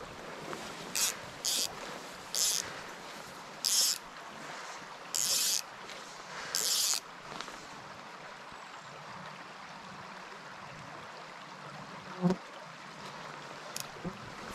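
Small stream running steadily over rocks. Six short, hissy, high-pitched zips come one after another in the first half, and a single sharp knock comes about twelve seconds in.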